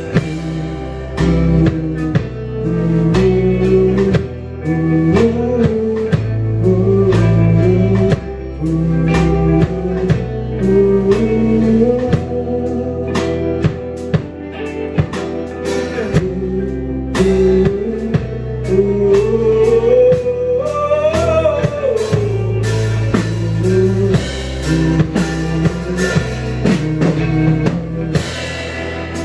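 Live rock band playing a song: two electric guitars, an electric bass and a drum kit, with a steady drum beat under moving bass notes.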